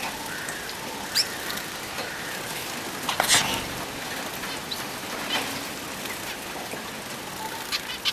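Pet finches splashing in a water bath: a steady watery patter broken by sharper splashes, the loudest about three seconds in, with a few short high chirps.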